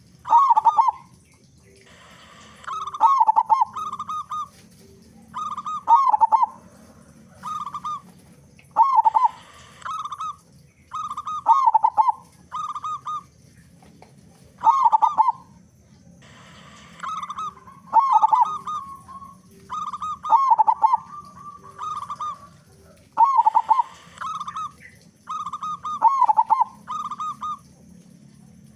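Zebra dove (perkutut) cooing, its short stuttering song phrases repeating every second or two.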